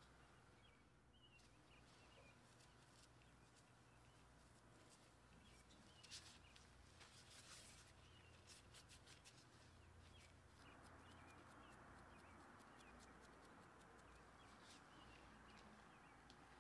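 Near silence: faint room tone with small bird chirps far in the background and a few soft handling clicks.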